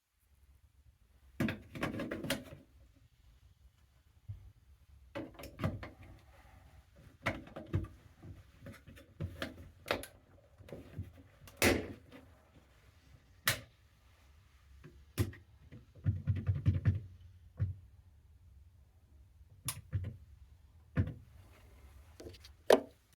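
Irregular clicks and knocks of hands working on a plastic wall thermostat, some sharp single snaps and some short rattling clusters, over a faint steady low hum.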